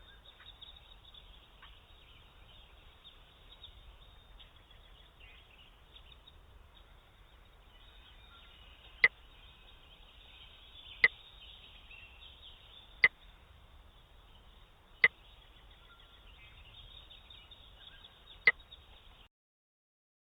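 Faint, muffled low-fidelity noise, broken in the second half by five sharp clicks: four about two seconds apart, then a fifth after a longer gap. The sound cuts out to dead silence near the end.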